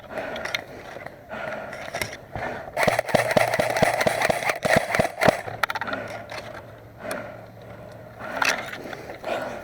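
Hurried footsteps and the rustle and knock of gear as a player moves over rough ground, with a quick run of irregular clicks and scuffs loudest between about three and five and a half seconds in.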